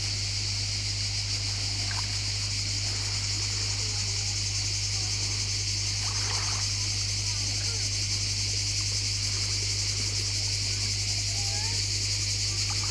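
Insects buzzing in a steady, high-pitched chorus over a constant low hum, with a few faint chirps.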